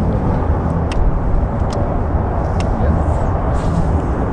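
Wind buffeting the microphone as a steady low rumble, with a few faint sharp clicks.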